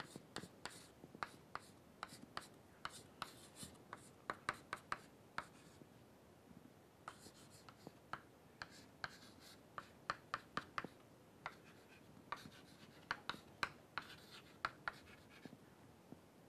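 Chalk tapping and scratching on a chalkboard as equations are written: quick irregular taps and strokes, with a couple of short pauses.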